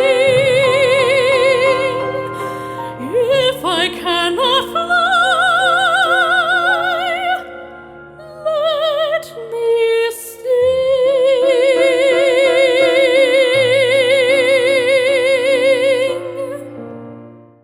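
A woman singing in a classical, operatic style with wide vibrato over a steady accompaniment. Near the end she holds one long high note, which then fades out.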